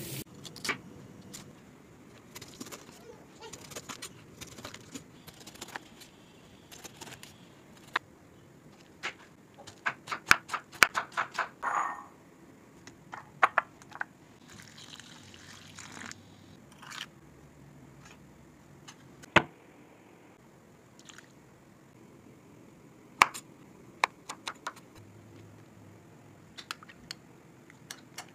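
Scattered sharp clicks and knocks of kitchen work with cut pineapple in a glass bowl, with a quick run of them about halfway through.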